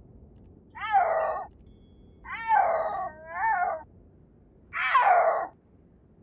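Snow leopard calling: four short, loud mewing calls, each falling or arching in pitch, with the middle two close together.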